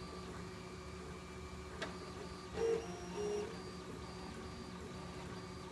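CTC 3D printer running a print: its stepper motors sing in short notes that change pitch as the print head moves, over a steady hum. There is a sharp click about two seconds in, and two louder motor notes a little after.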